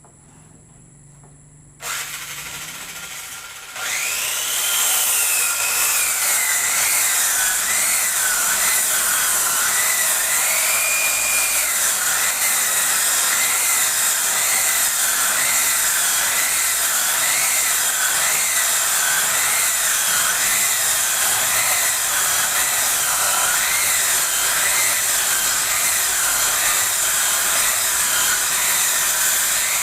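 Table-mounted circular saw starting up about two seconds in, then running louder from about four seconds in while ripping a wooden board, its whine wavering up and down as the blade works through the wood.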